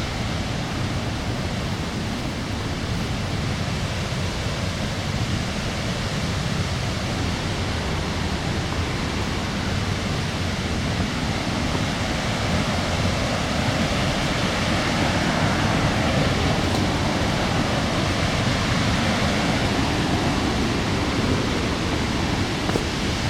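Steady rushing of a waterfall and river, an even wash of water noise that swells a little partway through.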